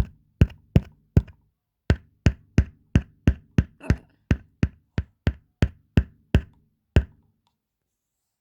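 Hammering on a subwoofer cabinet: about nineteen hard knocks at roughly three a second, with a short break after the first few, each leaving a low ring from the enclosure, then stopping about seven seconds in.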